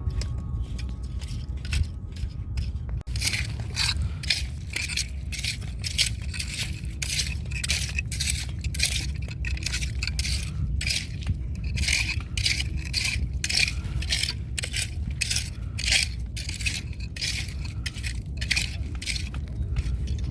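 Rapid short strokes scraping through wet sand and shells while digging for clams, two or three a second, over a steady low rumble.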